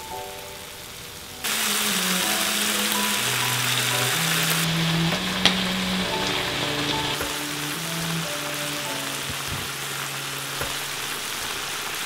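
Thinly sliced beef and vegetables sizzling on the hot plate of an electric tabletop hot pot: a steady frying hiss that starts suddenly about a second and a half in, with a single sharp click midway.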